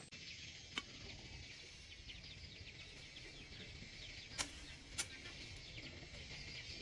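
Faint outdoor ambience of small birds chirping, with a low rumble underneath. Three sharp clicks stand out, one about a second in and two close together around four and a half to five seconds.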